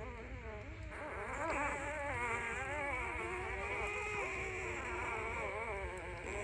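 Puppy whining: a continuous, wavering high-pitched cry that warbles up and down in pitch and grows louder about a second and a half in.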